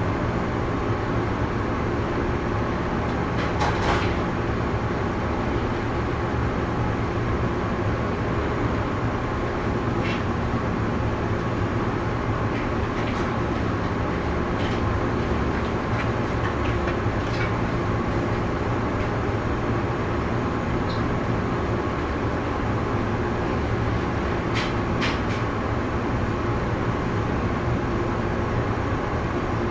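Interior of a standing 117 series electric train car: a steady low hum from its onboard equipment while it waits to depart, with a few faint clicks and knocks scattered through.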